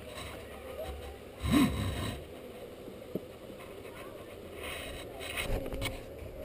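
Wooden beehive parts being handled, with a sharp knock about three seconds in, over a low steady hum of honeybees around the open hive.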